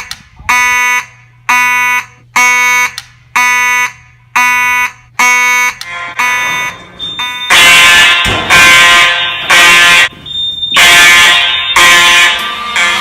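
Fire alarm horn sound effects. A buzzy horn tone pulses about once a second, then about six seconds in a louder, harsher alarm sound takes over with longer pulses.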